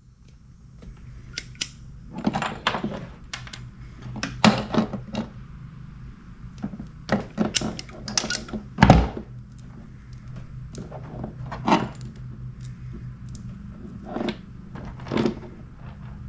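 Hand wire strippers clicking and snapping as insulation is cut and stripped from the ends of a two-conductor wire, with small knocks from handling the tool and wire. A steady low hum runs underneath.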